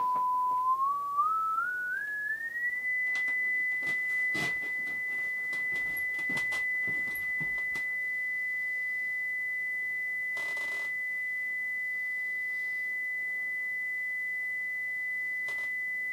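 Sine-wave test tone from a signal generator played through a loudspeaker: a steady 1 kHz tone that climbs in small steps over about two seconds, as the dial is turned, and then holds at a steady 2 kHz. A few faint clicks and a brief hiss sound partway through.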